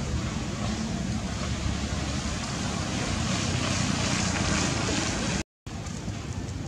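Steady outdoor rumble and hiss, mostly wind buffeting the microphone. It breaks off in a brief dropout about five and a half seconds in, where the shot changes.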